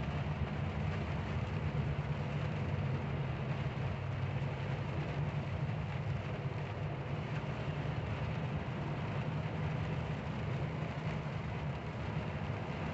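Heavy truck's engine running steadily at cruising speed, heard from inside the cab, under a steady hiss of rain and wet road.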